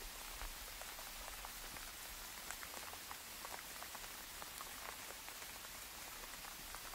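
Light rain falling on open water: a steady soft hiss with many small drops ticking at random.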